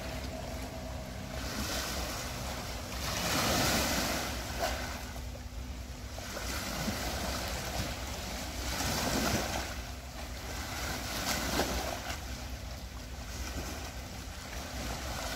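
Small lake waves washing and splashing against a rocky shore, swelling every two to three seconds, with wind on the microphone.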